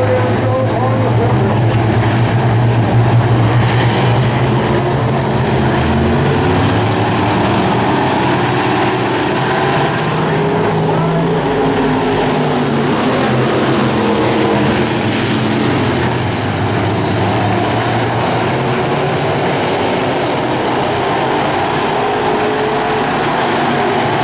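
A pack of dirt-track stock car engines running together as the cars circle the oval, a loud steady drone whose pitch wavers as the cars pass.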